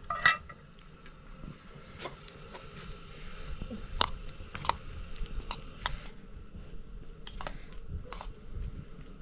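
Steel spoon clinking and scraping against a steel bowl as dal and rice are mixed, with scattered sharp clicks, followed by a person eating.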